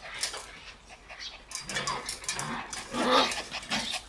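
Shiba Inu puppies playing together, giving short yips and whines, with the loudest cry about three seconds in.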